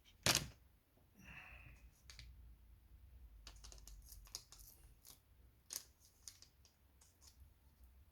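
A sharp click, then a string of light clicks and taps of small parts and tools being handled, with a short hiss between them.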